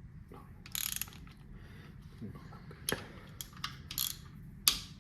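Hand socket ratchet clicking in short strokes as engine bolts are snugged down and re-checked, with scattered sharp metal clinks; the sharpest comes near the end.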